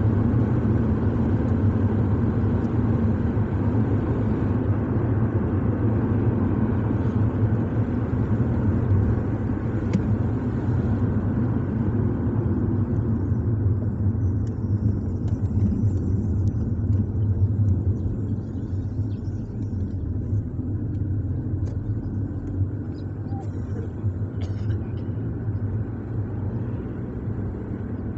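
Car driving along a paved road: a steady low rumble of engine and tyres, easing slightly about two-thirds of the way through.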